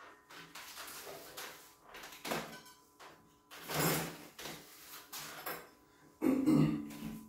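Rear wheel of a mountain bike being worked out of the frame's dropouts by hand: a run of scrapes, rattles and clunks from the wheel, chain and derailleur. The loudest clatter comes about six seconds in, as the wheel comes free.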